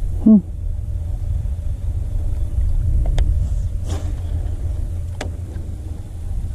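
A steady low rumble, with a short falling pitched sound right at the start and three sharp clicks about three, four and five seconds in.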